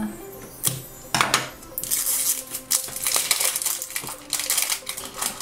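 Scissors cutting the plastic seal on a small plastic toy canister, with a couple of sharp snips, then a dense crinkling of plastic wrapping from about two seconds in as the lid is pulled off and the packaging inside is handled.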